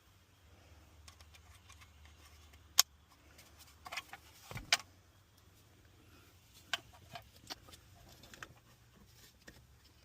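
Scattered clicks and taps of small plastic trim pieces and clips being handled and fitted, with one sharp click about three seconds in and a cluster of clicks around four and a half seconds.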